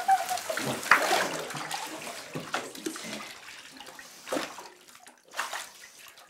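Shower turned on and spraying water into a bathtub: a rushing hiss of water that slowly fades over several seconds, broken by a few short sharp sounds. A child's drawn-out cry of 'non!' trails off at the very start.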